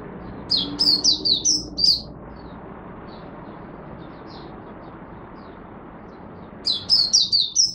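Caged white-eye (mata puteh) singing: a quick burst of high, warbling notes about half a second in lasting about a second and a half, and another near the end, with faint short chips between. A steady low hiss runs underneath.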